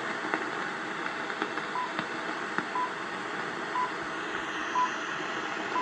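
Greenwich Time Signal pips on BBC longwave: five short 1 kHz beeps, one each second, starting about two seconds in, counting down to the hour. They come through the hiss and crackling static of distant AM longwave reception on a portable radio's ferrite-rod aerial.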